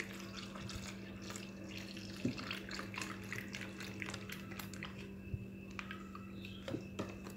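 Milk poured from a carton into an empty plastic biscuit wrapper held in the hand: a faint trickle of liquid with small crackles from the wrapper, over a steady low hum.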